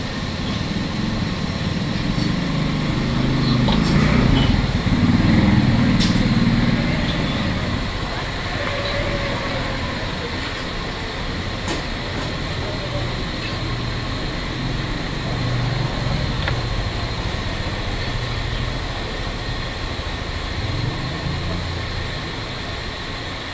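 Steady low rumble of busy surroundings with indistinct voices in the background, louder for a few seconds near the start, and a couple of sharp clicks.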